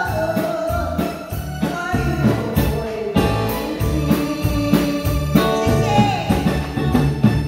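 A woman singing into a microphone over a live band of drum kit, electric guitars and keyboard playing a steady beat.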